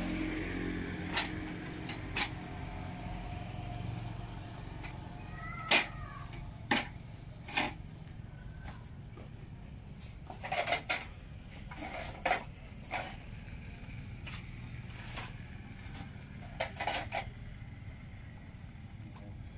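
Steel-frame folding chair with a wooden slat seat clanking as it is unfolded and then sat on and rocked: about a dozen sharp metallic knocks and clicks, some in quick pairs, over a low steady background rumble.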